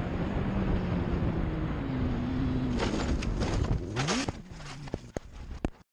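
Sport bike engine running under a rush of wind, then about three seconds in a burst of knocks and scraping as the bike goes down, the engine pitch dropping and rising. A few more separate knocks follow before the sound cuts off.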